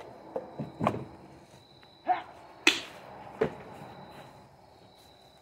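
Four sharp cracks or snaps, spread over a few seconds, the loudest a little under three seconds in, over a steady high tone.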